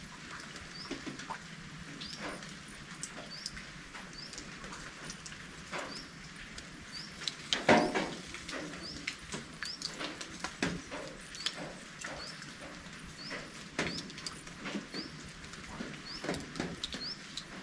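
Raindrops dripping and pattering irregularly onto surfaces, with one louder knock about eight seconds in. A short, high, rising chirp repeats about once a second throughout.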